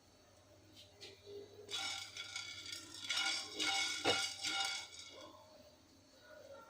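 Whole black peppercorns and cloves rattling and clinking in a dry pan as they are stirred while roasting, a few clicks about a second in, then about three seconds of dense clatter that fades near the end.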